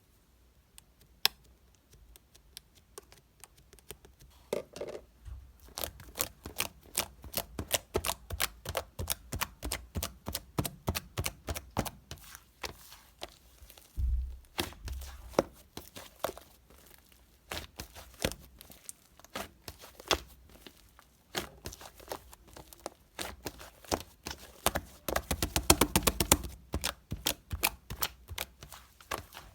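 Close handling noises: a dense run of sharp clicks and taps with some crinkling, and a couple of low thumps about halfway through.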